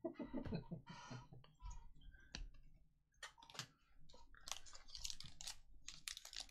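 Trading cards being handled and flipped through by hand: a run of light clicks and rustles of card stock, which crowd closer together in the second half.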